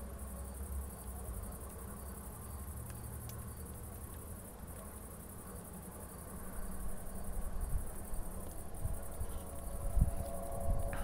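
Crickets chirping in a steady high-pitched trill. Underneath is a low rumble that grows louder and more uneven in the second half.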